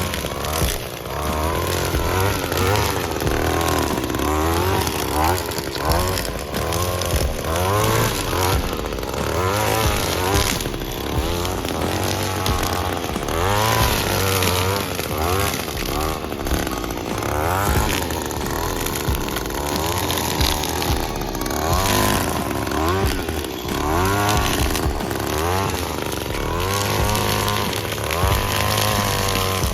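Gas-powered string trimmer (weed eater) running, its engine revving up and down over and over as it cuts weeds and brush.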